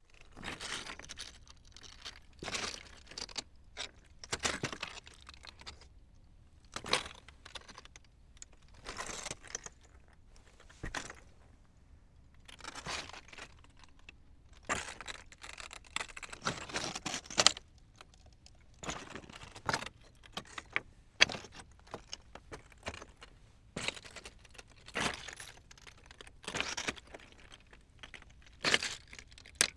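Footsteps walking over loose rocks: each step a short crunching clatter of stones shifting underfoot, coming irregularly about every second or two, with a few sharper clacks of stone on stone.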